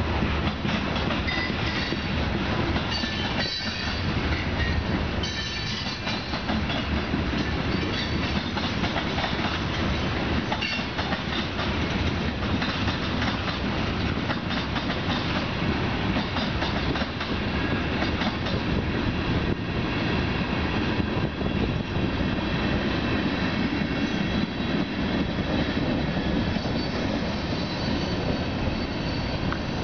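Freight train of tank cars rolling past, a steady noise of steel wheels running on the rails with many small clicks throughout.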